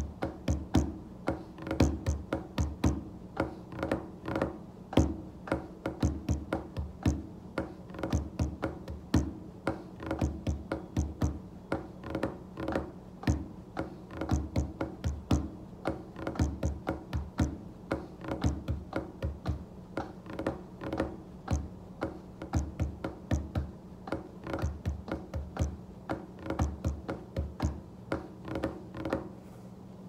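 Hands drumming and tapping on a desktop: fast, irregular runs of fingertip taps and heavier thumps in drummer-like patterns, over a steady low hum.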